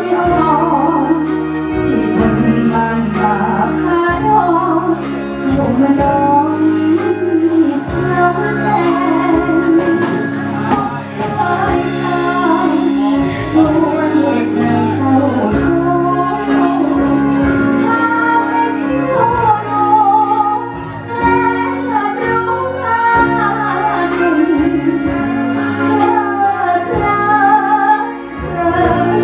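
A woman singing into a hand microphone over loud amplified backing music with a steady, repeating bass line.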